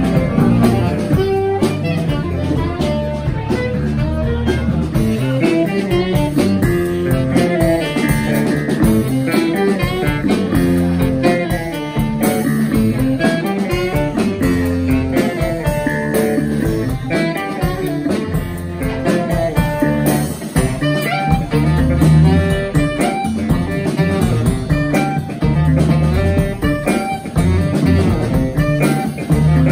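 Live jazz trio playing: saxophone over an electric bass line and drum kit, the bass prominent.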